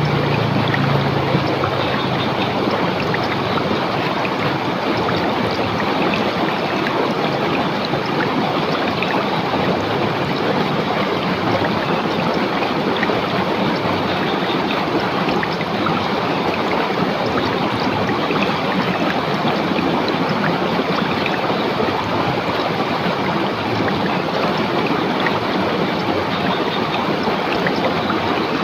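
River water rushing steadily over rocks, a continuous even splashing and gurgling. A faint low hum fades out in the first couple of seconds.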